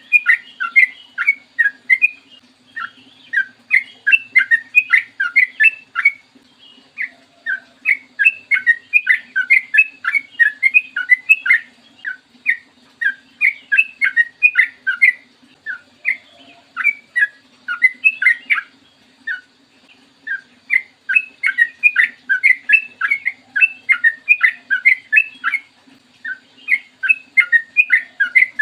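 Yellow-vented bulbul (trucukan) singing long, fast runs of short chattering notes, several a second, in phrases of a few seconds separated by brief pauses. A faint steady low hum runs underneath.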